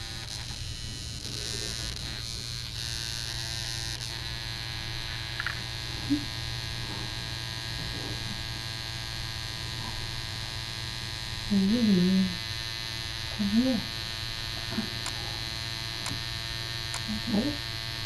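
Steady electrical hum from a room appliance. A few short vocal sounds that bend up and down in pitch come in about two-thirds of the way through and again near the end.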